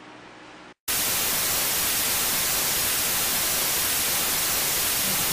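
Loud, steady static hiss like a lost video signal, cutting in abruptly about a second in after a faint hiss and a split second of dead silence.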